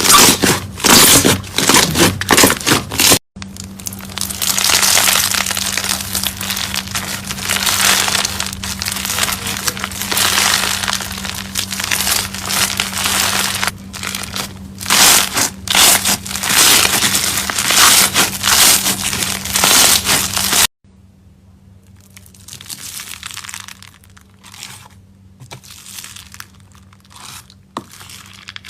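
Slime being squeezed and pressed, giving dense crackling and crunching sounds. The sound breaks off sharply twice, about 3 and 21 seconds in, and the last part is much quieter.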